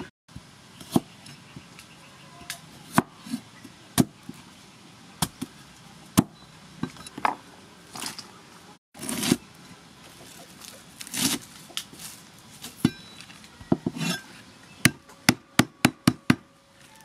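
Knife and cleaver knocking on a thick wooden chopping block: scattered single knocks, then near the end a quick run of about six cleaver chops.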